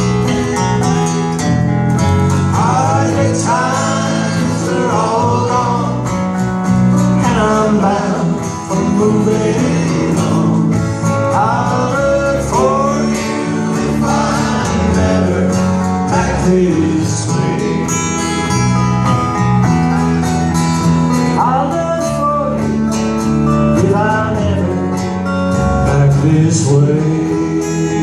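Country band playing live: acoustic guitar under a lead melody that slides and bends between notes, with no words sung.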